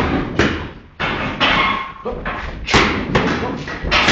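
Boxing gloves striking focus mitts during pad work: a quick, irregular series of sharp thuds, two or three a second.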